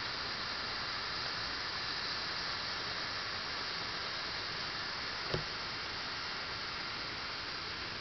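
Steady, even hiss throughout, with a single short knock a little past five seconds in.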